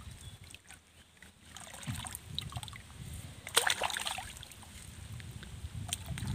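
Water sloshing and splashing while a gill net is handled and pulled through a pond, with one sharp splash about three and a half seconds in.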